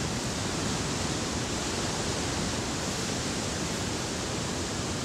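Steady rushing noise of ocean surf breaking on a beach, an even wash with no separate strokes.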